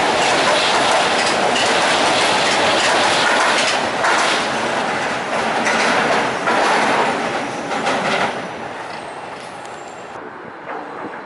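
SEPTA Market-Frankford Line elevated metro train running past close on its steel viaduct, wheels clattering over the rail joints. About eight seconds in it fades as the train pulls away.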